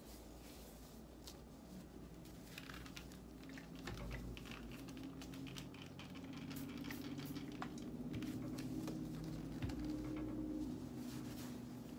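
Soft rustling and scattered light taps and clicks of gloved hands wiping a small guitar practice amplifier with a cloth and handling a plastic spray bottle.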